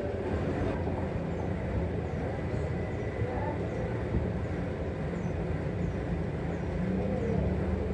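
Steady low rumble of foundry workshop noise, unbroken and even in level.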